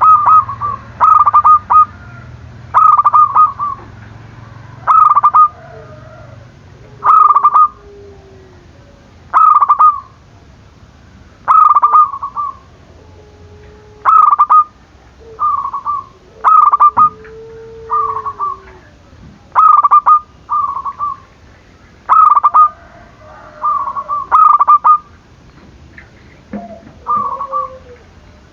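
Zebra dove (perkutut) cooing: loud short bursts of rapid stuttering coos, repeated about every two seconds. Fainter, lower drawn-out calls sound between the bursts.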